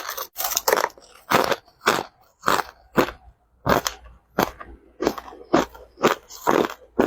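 Crushed ice being bitten and chewed close to the microphone: a run of sharp, crackly crunches, about two a second.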